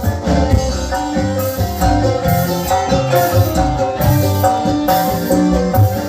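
Dangdut music played loud through a PA sound system, with a steady drum beat, heavy bass pulses and a sustained melody line.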